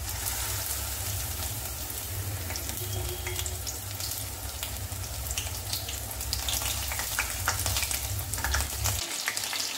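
Coated chicken pieces deep-frying in hot oil in a kadai: a steady sizzle with many crackling pops, the pops growing denser after about five seconds. A low hum underneath stops about nine seconds in.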